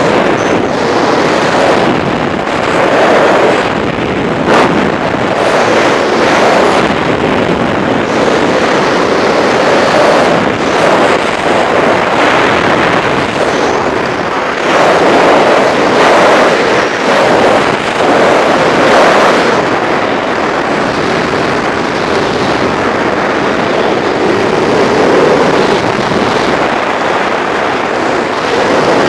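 Skydiving freefall wind rushing over the camera's microphone: a loud, steady rush of noise that swells and eases irregularly.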